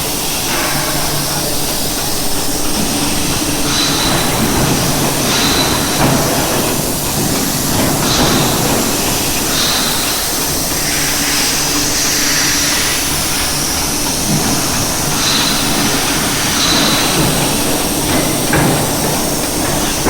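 Rebuilt 1000-ton forging press running: steady machine noise with a hiss, broken by short recurring sounds every second or two.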